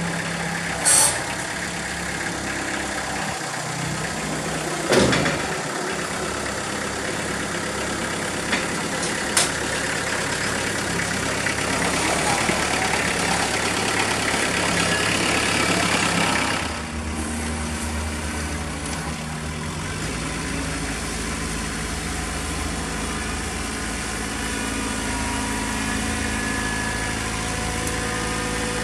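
Kubota B3030 compact tractor's three-cylinder diesel engine running steadily as the tractor comes down steel ramps off a dump trailer, with two loud knocks in the first five seconds. The engine note changes about two-thirds of the way through as the tractor works at a brush pile with its front loader.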